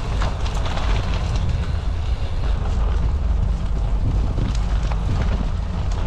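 Wind buffeting the microphone over the rattle and crunch of a small-wheeled bicycle riding fast along a rough dirt track.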